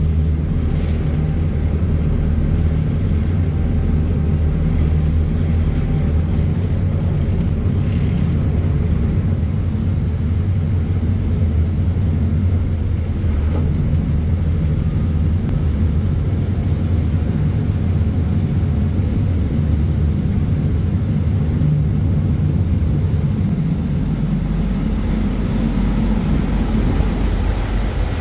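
Ferry's diesel engines running steadily under way: a loud low rumble with the churning of the propeller wash behind the stern. Near the end the engine note shifts lower.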